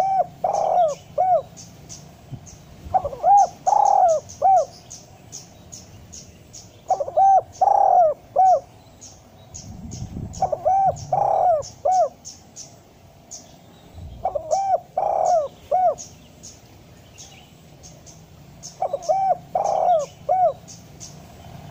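Spotted dove cooing: a phrase of three or four notes repeated about every four seconds, six times. Small birds chirp high and quick in the background.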